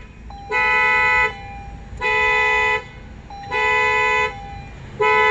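Car horn of a 2015 Acura ILX sounding in repeated blasts, four in a row, each under a second long and about a second and a half apart: the car's security alarm has gone off during key programming.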